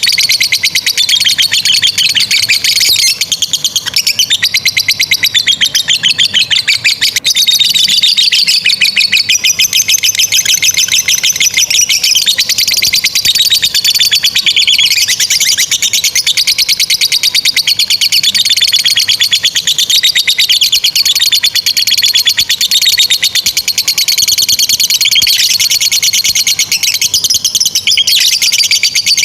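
Lovebirds singing a long 'ngekek': an unbroken, high-pitched, very rapid chattering trill that wavers up and down in pitch without a pause. This long ngekek is the song prized in competition lovebirds and played to train young birds.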